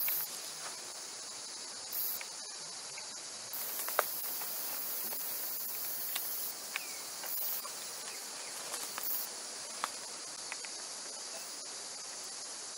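Steady high-pitched chorus of insects in forest, unbroken throughout, with a few short faint clicks scattered through it.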